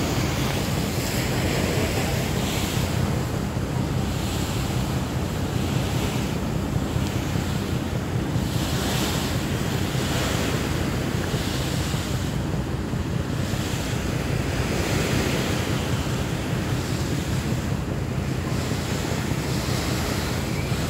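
Wind buffeting the microphone and river water rushing and splashing along the hull of a moving boat, with hissy surges every few seconds over a steady low drone.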